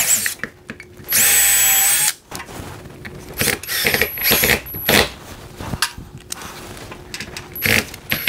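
Cordless drill driving screws to fix a garage door sensor to the wall. The motor runs in bursts: one long run of about a second, about a second in, then several shorter bursts as the screws are seated.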